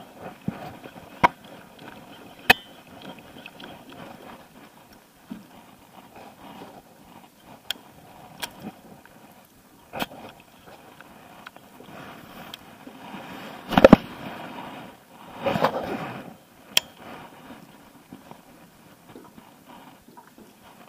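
Fishing tackle being handled in an aluminium jon boat: a handful of scattered sharp clicks and knocks over a low rustle. Two louder scraping rushes come about two-thirds of the way through.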